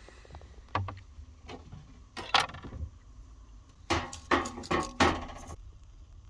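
Dishes and utensils knocking and clinking during food handling, in a few short clatters with the busiest cluster about four to five and a half seconds in.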